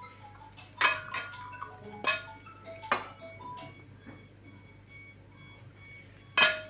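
Soft background music with a light melody, with four sharp clinks of kitchenware that ring briefly; the loudest clink comes near the end.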